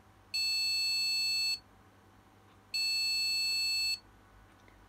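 A small buzzer on a Gigabyte H110M S2H motherboard's speaker header sounds two long, high-pitched beeps, each just over a second long and about a second apart. This is the board's POST error beep code as it fails to boot, which online advice ties to a memory problem.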